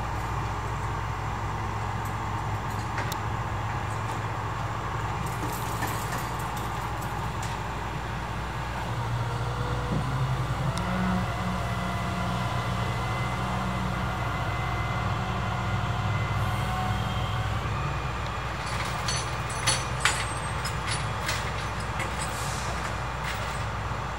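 Steady low hum of idling vehicle engines and street traffic, louder for a while in the middle, with two sharp clicks near the end.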